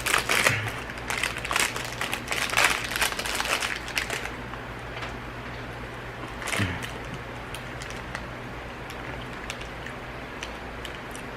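Plastic fruit-snack wrapper crinkling and crackling for about four seconds as it is handled, then a few scattered light clicks.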